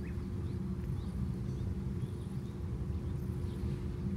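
Steady low outdoor rumble with a constant low hum under it, and a few faint, short high chirps scattered through.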